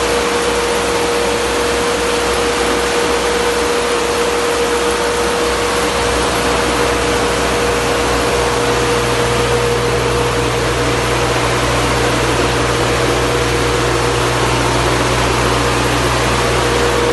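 Aksa generator set's engine running steadily, a constant loud mechanical drone with a steady mid-pitched tone in it. A lower hum grows stronger about six seconds in.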